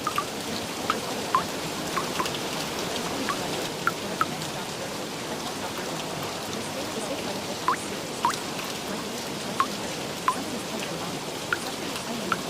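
Steady rain, with scattered single drops plinking through it.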